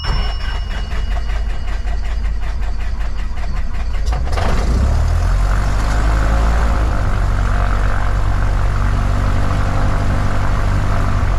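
Cessna 172's piston engine and propeller heard from inside the cabin, idling with an even pulsing beat. About four seconds in it picks up to a louder, steadier run as the plane starts to taxi.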